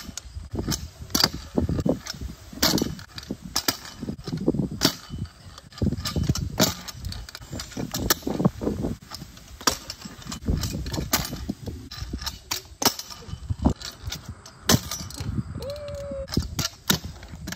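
Pro scooter doing flat tricks on rough asphalt: the wheels rolling on the road, broken by many sharp, irregular clacks as the deck and wheels land and the scooter hits the pavement.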